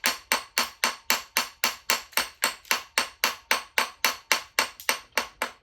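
Small hammer tapping rapidly and steadily on an engine main bearing cap, about five light metal strikes a second, knocking the cap loose from its locating dowel pins.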